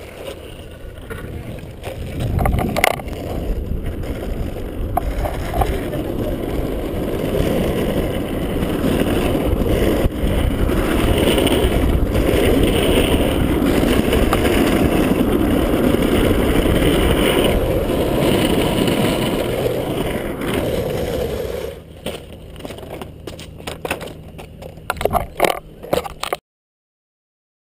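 Freebord's wheels rolling fast over asphalt, a rough steady rumble heard from a camera mounted low on the board. It is loudest in the middle, then drops to a quieter rumble with scattered knocks and clatter, and stops suddenly near the end.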